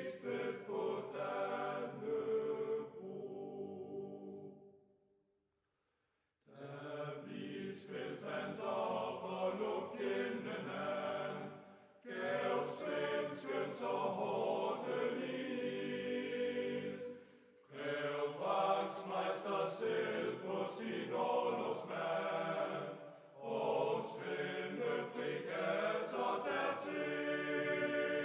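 Music: chant-like choral singing in long phrases. It fades out to silence about four seconds in and comes back about two seconds later, with short pauses between later phrases.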